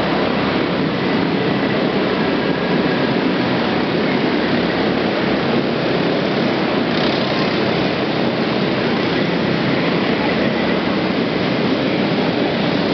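Several small off-road trophy karts racing on a dirt track, their engines blending into a steady din.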